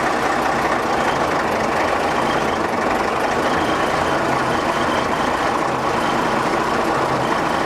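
Case 930 tractor engine running steadily.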